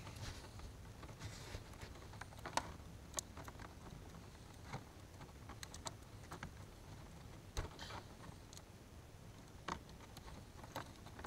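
Faint rustling and scattered sharp clicks of hands handling a camera video cable and its plastic plug against bare metal floor panels.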